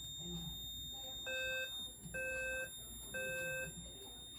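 Fire alarm horn sounding three half-second beeps about a second apart, the temporal-three evacuation pattern, with the system in alarm from a magnet-tested smoke detector. A steady high-pitched tone runs underneath.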